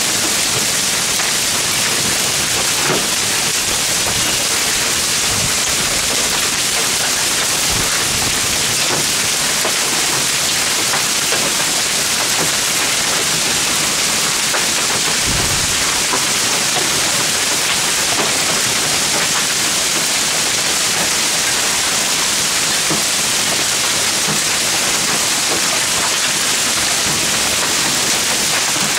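Hail up to 2–3 cm across falling hard with rain in a strong hailstorm: a dense, steady hiss with many scattered sharp ticks of hailstones striking.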